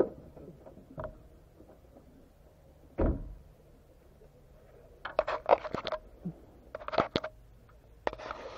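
Handling noise from an Eken H9R action camera being gripped: scattered clicks, a heavier thump about three seconds in, then bursts of rubbing and clicking against the housing from about five seconds on.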